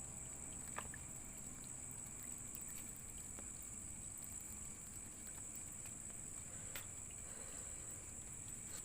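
Night insects such as crickets buzzing in one steady high note, with a couple of faint clicks.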